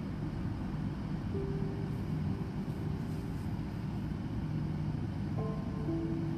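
Steady low rumbling background noise, with faint held notes of soft ambient background music, more of them coming in near the end.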